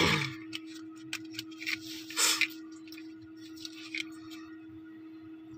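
Small clicks and short rustles from hands handling small objects and plastic, over a steady low hum. A louder rustle comes about two seconds in.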